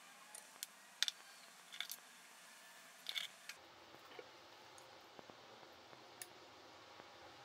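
Light clicks and clacks of a wooden spoon knocking against dishes while serving a thick chili sauce, a handful of quick sharp ones, loudest about a second in and around three seconds in. After that only a faint room hum with a few soft ticks.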